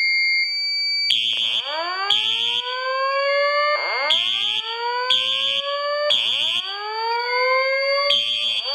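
Voice evacuation fire alarm system sounding. A steady tone for about the first second gives way to a repeating slow rising whoop, about every two seconds, over short alarm horn pulses about once a second.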